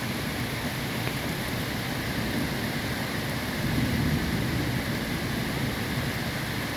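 Steady rain falling, swelling slightly about four seconds in.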